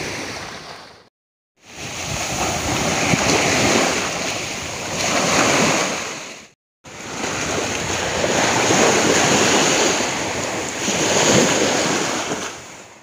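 Small waves breaking and washing up a sandy beach, the surf swelling and ebbing every couple of seconds. The sound cuts out completely twice for a moment, about a second in and about halfway through.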